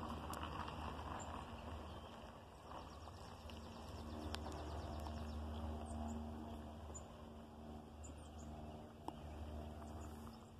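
Outdoor trackside ambience: wind rumbling on the microphone, with a few faint, short, high bird chirps.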